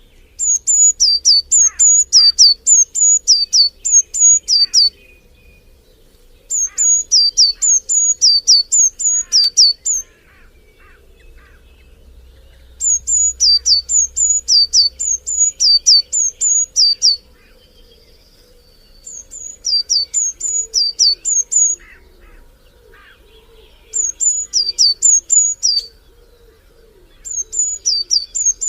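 A bird singing bouts of loud, high, repeated notes, about two notes a second, each bout lasting a few seconds with short pauses between. Fainter chirps of other birds run underneath.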